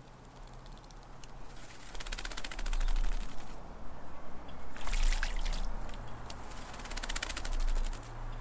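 A tūī bathing in a water bowl, splashing in three quick bouts of rapid wing-fluttering about two, five and seven seconds in.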